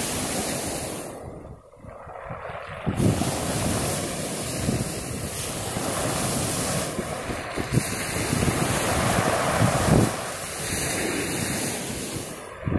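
Sea waves breaking and washing up a pebble beach, the surf swelling and easing with a brief lull about two seconds in. Wind buffets the microphone throughout.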